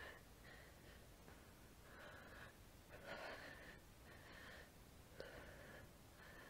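Near silence with faint breathing: a few soft breaths in and out.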